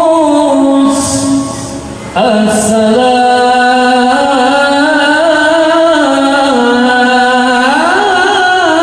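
A man's voice reciting the Qur'an in the melodic qiroah style over a mosque PA system, holding long ornamented notes. There is a short pause about a second in, then one long wavering note that rises in a glide near the end.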